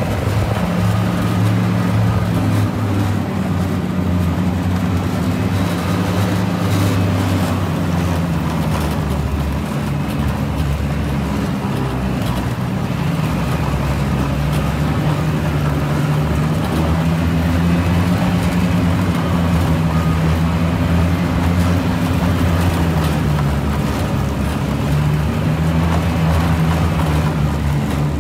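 1982 Ski-Doo Elite snowmobile's two-stroke engine running under way on a snow trail. The engine note sags and climbs back a couple of times as the throttle eases and opens.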